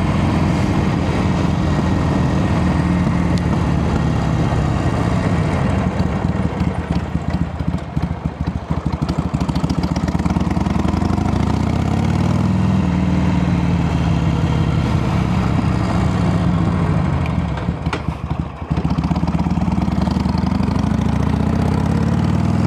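Harley-Davidson Sportster 883's V-twin engine running under way, its revs rising and falling with the throttle. The revs sag from about six to ten seconds in, climb again, dip briefly near eighteen seconds, then rise once more.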